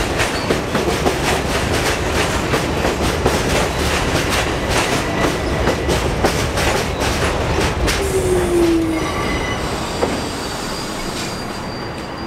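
Kawasaki R62 subway train pulling into the station and coming to a stop: steel wheels clacking over rail joints, with a short squeal about eight seconds in. The clacking dies away at about ten seconds, leaving a quieter sound with a thin, steady high whine.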